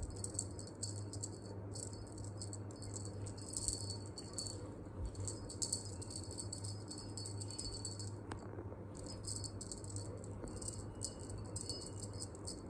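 Cat toy rattling and jingling in quick clusters as the cats bat it about, pausing briefly a little after eight seconds in.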